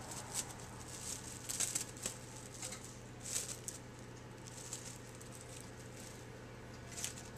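Plastic wrap rustling and crinkling faintly in short, scattered bits as hands stretch it over a plate, with a low steady hum underneath.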